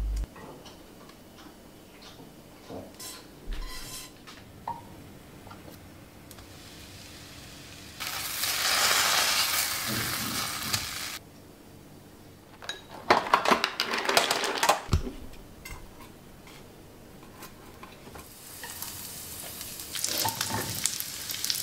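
Food frying in a nonstick frying pan: butter sizzling around cheese-filled bread rolls, starting loud about a third of the way in and cutting off suddenly, then a run of utensil clatters and scrapes against the pan. Near the end chopped garlic sizzles in oil, with light clicks of a spatula.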